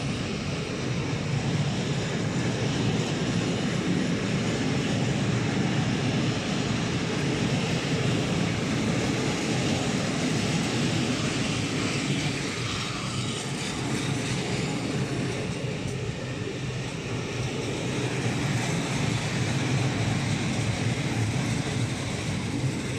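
Freight train of open coal wagons rolling past: a steady rumble of steel wheels on rails that begins to fade as the last wagon goes by at the end.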